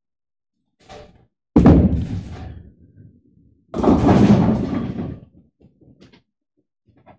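Two loud impacts on a bowling lane. A heavy thud about a second and a half in dies away over a second. Then, about four seconds in, a bowling ball crashes into the pins and the pins clatter and scatter for about a second and a half, followed by a few light knocks.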